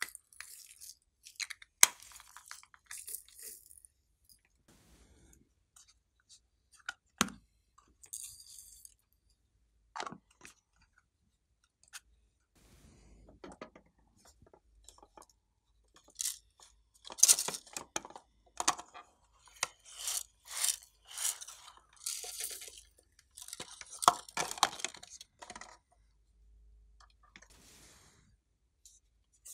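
Homemade slime being mixed and squeezed, giving scattered sticky clicks and crackles in irregular bursts, busiest in the second half.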